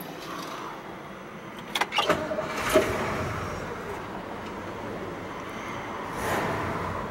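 1959 Oldsmobile 98's V8 cranked and starting about two seconds in, with a few sharp clicks before it catches, then running steadily, heard from inside the cabin. The engine grows briefly louder near the end.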